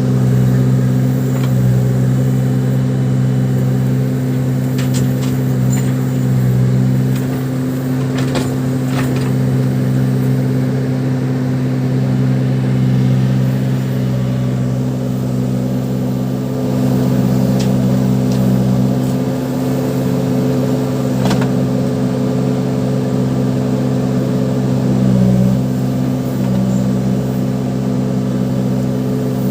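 Diesel engine of a Case 580 Super backhoe loader running steadily, swelling and easing slightly as it works, with a few faint clanks.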